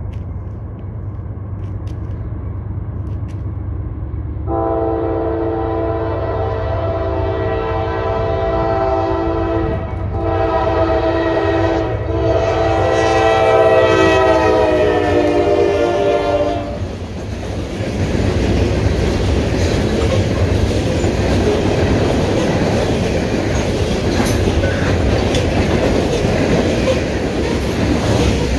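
Norfolk Southern freight locomotive's multi-note air horn sounded in three blasts, long, shorter, long, its pitch dropping as the lead engines pass. Before it, the low rumble of the approaching train; after it, the steady clatter of the hopper cars' wheels on the rails.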